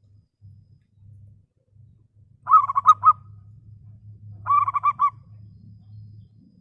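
Local zebra dove (perkutut) cooing: two short phrases about two seconds apart, each a quick run of rolling notes, over a faint low hum.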